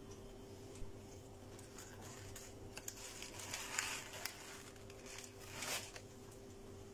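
Thin plastic carrier bag rustling and crinkling in short bursts, with a few light clicks, over a faint steady hum.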